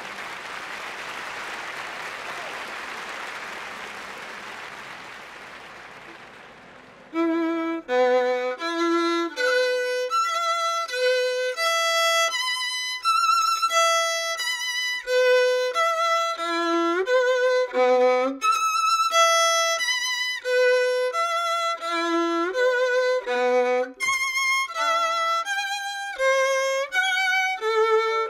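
A wash of noise fades out over the first seven seconds, then a solo violin starts playing a quick melody of single bowed notes with vibrato.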